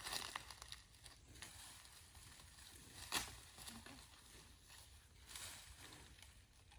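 Faint rustling of leafy brush and dry leaves as a person pushes a bamboo tray into a bush, with a few small crackles at the start and one sharp crack about three seconds in.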